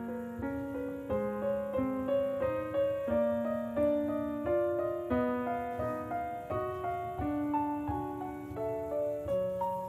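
Background piano music: a gentle melody of evenly paced single notes, about two a second.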